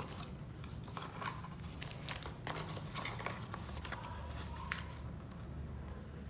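Product packaging being opened by hand: a run of short crinkles, rustles and sharp snips or tears, over a steady low hum.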